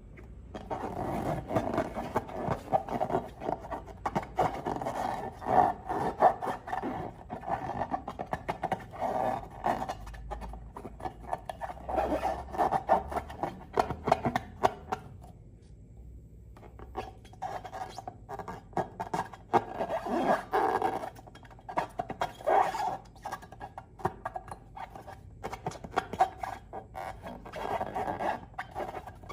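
Glossy slime being squeezed and worked by hand: sticky, wet crackling and small pops in waves, with a short pause about halfway.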